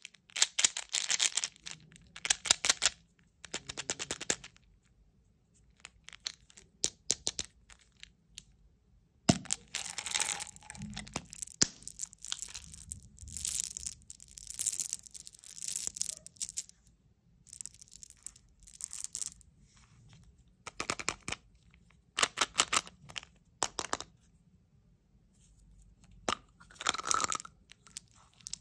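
Plastic candy tubes and a gum bottle handled and opened, with caps clicking and small coated chocolate candies and gum pellets rattling out into a hand. The sound comes in bursts of quick clicks and rattles with short pauses, and there is one sharp knock about nine seconds in.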